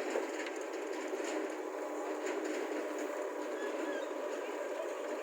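JCB 3DX backhoe loader's diesel engine running steadily under work, with a few faint knocks.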